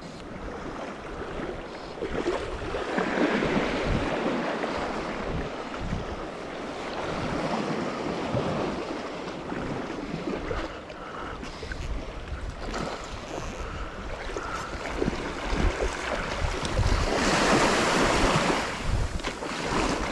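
Small sea waves breaking and washing up a sandy beach, rising and falling, with a louder wash of surf near the end. Wind rumbles on the microphone throughout.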